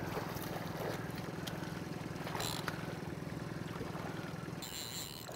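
Boat's outboard motor running at a low trolling idle, a steady low hum, with a few faint clicks.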